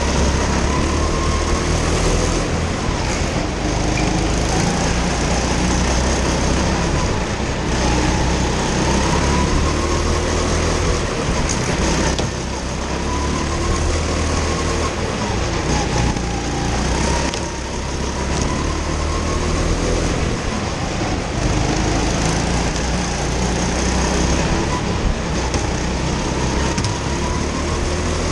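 Go-kart engine at racing pace, heard from on board, its pitch rising along the straights and dropping back into the corners over and over, inside an enclosed indoor track hall.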